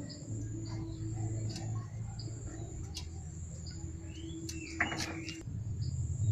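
Small birds chirping over and over above a steady low hum, with a few light clicks and a brief rasping noise about five seconds in.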